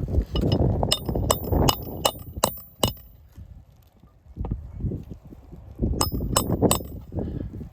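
Hammer striking roofing nails to fasten a repaired asphalt shingle, sharp metallic blows with a ringing tone: a quick run of six about a second in, then three more near the end.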